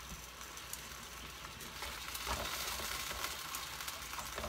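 Frozen broccoli sizzling in a frying pan, the liquid from the frozen vegetables cooking off with a steady hiss. It gets a little louder a bit after two seconds in as the broccoli is stirred with cooking chopsticks, with small clicks against the pan.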